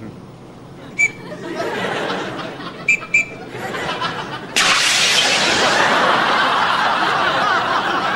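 Studio audience laughing: the laughter builds up from soft chuckles, then breaks into a sudden louder burst of laughter about four and a half seconds in. A few short clicks come near the start.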